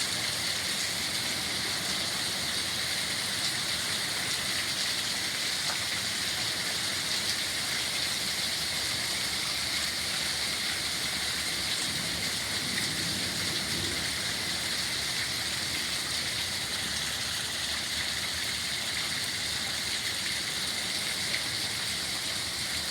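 Steady rain falling, an even hiss that keeps up unbroken.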